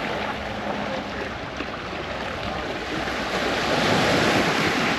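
Sea waves washing onto the beach, with wind on the microphone; the wash swells louder past the middle.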